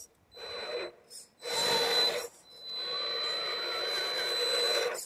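RC rock crawler's electric motor and geared drivetrain whining in three bursts of throttle, the last and longest lasting about two and a half seconds, as the truck tries to climb in dig mode without getting through.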